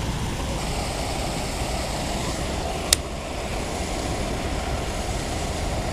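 Steady rushing noise of water spilling over a low concrete weir, mixed with distant traffic, with a single sharp click about three seconds in.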